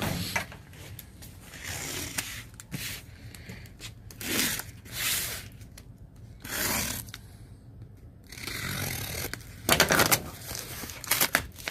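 Cardboard scraping and rustling in irregular bursts as a shipping carton of boxed jigsaw puzzles is opened and the puzzle boxes are slid out. A few sharp knocks come near the end.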